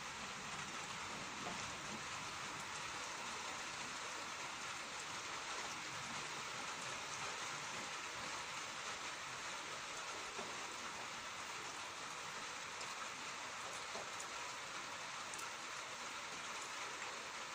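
Rain falling: a steady, even hiss with a few faint drop ticks scattered through it.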